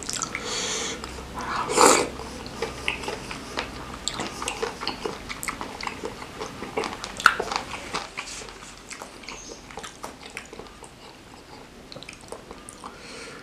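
Close-miked chewing of a mouthful of spicy seblak: wet smacking and clicking mouth noises, with a louder noise twice in the first two seconds and a sharp click about seven seconds in.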